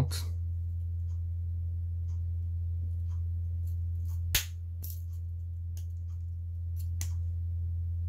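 Metal tools of a Victorinox Swiss Champ pocket knife clicking as they are folded shut and opened, a few sharp snaps spread out, the loudest a little past halfway. A steady low hum underneath.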